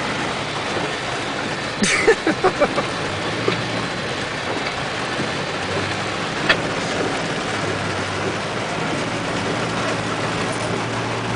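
Car engine running under load while the car works its way through a muddy roadside ditch, heard from inside the cabin as a steady drone. A few sharp knocks cut in, about two seconds in and again around six and a half seconds in.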